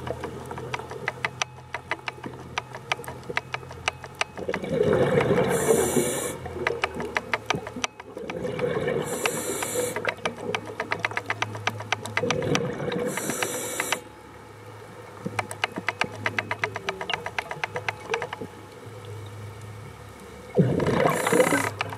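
Underwater, a scuba diver's regulator exhales bubbles in loud gurgling rushes every few seconds. Between them runs a steady crackle of fine rapid clicks over a low hum.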